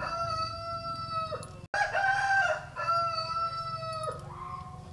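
Roosters crowing: about three long crows one after another, each held on one pitch and dropping away at the end.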